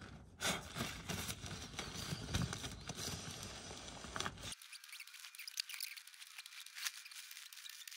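Nylon pump bag rustling and crinkling as it is squeezed and rolled down to push air through a one-way valve into an inflatable portaledge. There are many small crackles and scrapes, and the sound turns fainter and thinner about halfway through.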